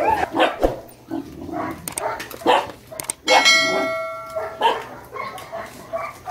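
A large pack of dogs barking, yipping and whining in many short, irregular calls. About three seconds in, a bell-like ringing tone sounds for about a second.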